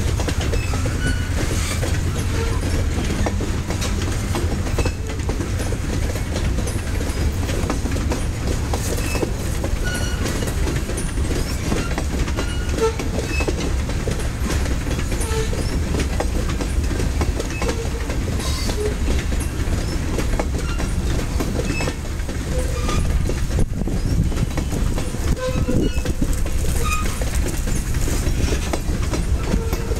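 Steady rumble of a freight train's covered hopper cars rolling past, wheels clacking over rail joints, with occasional short faint squeaks.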